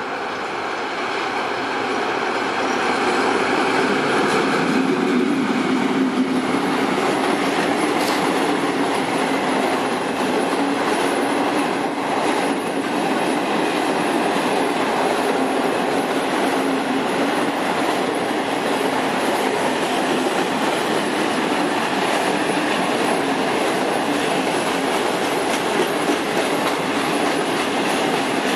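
TEM2 diesel-electric locomotive running as it approaches and passes, its engine note strongest about five seconds in. It is followed by a long freight train of covered hopper wagons rolling past with steady wheel-on-rail noise, clatter and a sharp clank about eight seconds in.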